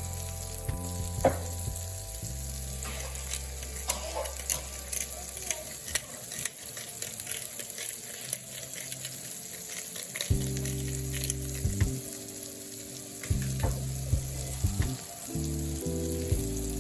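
Food sizzling as it fries in a pan, with scattered sharp clicks, over background music with a low bass line.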